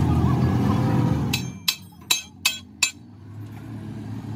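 Five quick ringing metal-on-metal blows, about a third of a second apart, typical of a hammer striking steel leaf-spring parts. They follow a low steady rumble that drops away about a second in.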